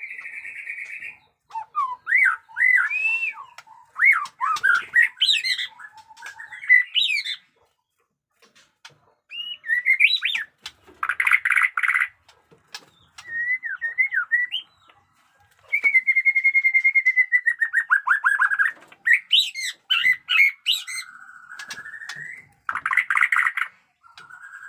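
White-rumped shama singing a varied song of clear whistled glides, rapid buzzy bursts and sharp chips in phrases. It goes quiet briefly about a third of the way in, and gives a long run of rapid notes past the middle.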